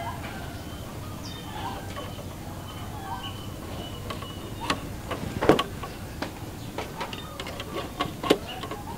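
Scattered sharp taps and knocks from hand work on a homemade rat trap, the loudest a little past halfway, with a few faint bird chirps.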